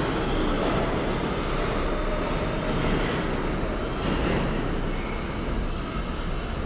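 New York City subway train running through the station with a steady rumble and rattle, easing off slightly near the end.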